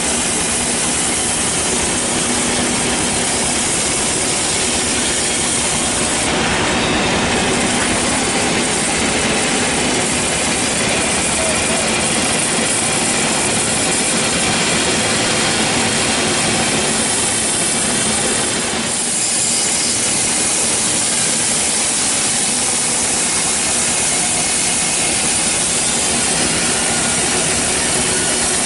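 Band sawmill running steadily as its blade cuts through a teak log, with a brief dip in level about two-thirds of the way through.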